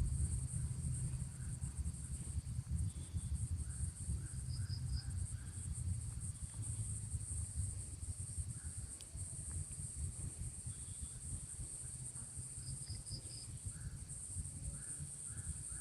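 Outdoor ambience of steady, high-pitched insects buzzing over a low rumble. Short runs of quick bird chirps come through a few times.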